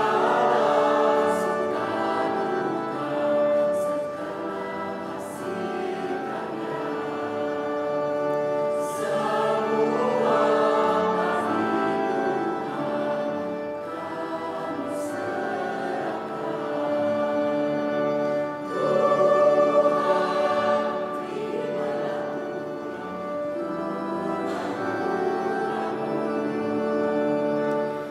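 Mixed church choir singing a hymn in two-part harmony, swelling louder about two-thirds of the way through.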